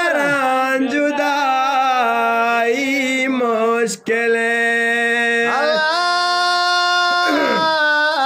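Balochi beht, sung devotional poetry: a voice holds long, wavering notes without words, with a short break about four seconds in.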